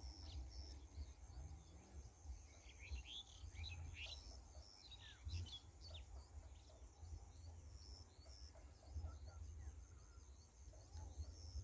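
Faint outdoor ambience: scattered short bird chirps and whistles, mostly in the first half, over a low, uneven rumble.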